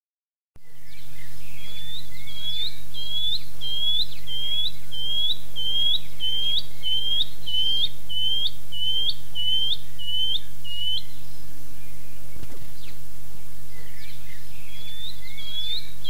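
Shining cuckoo (shining bronze-cuckoo) calling: a long series of high, upslurred whistles, about two a second, then a pause and the series starting again near the end. Fainter calls of other birds and a low steady hum lie behind it.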